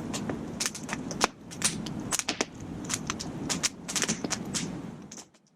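Wood campfire crackling with frequent, irregular sharp pops over a low steady rush; the sound cuts off abruptly near the end.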